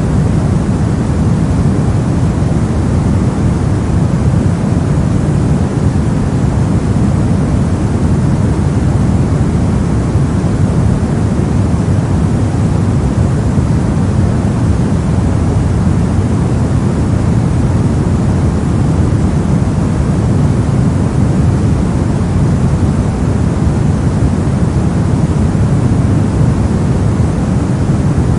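Steady soft colored noise, deep and rumbling with little hiss, held at a constant level with no changes or events.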